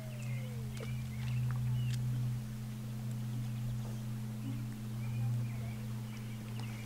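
Steady low hum, with faint bird chirps over it and a short falling call in the first second.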